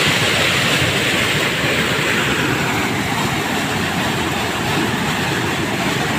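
Muddy flash-flood water rushing across open ground and pouring down a rocky channel in a loud, steady rush. About two to three seconds in, the higher hiss fades and the rush turns lower.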